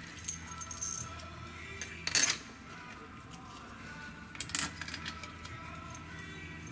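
Valve body bolts clinking against each other and the metal valve body as they are handled and set in by hand: a few sharp metallic clinks with brief ringing, the loudest about two seconds in and a small cluster about four and a half seconds in.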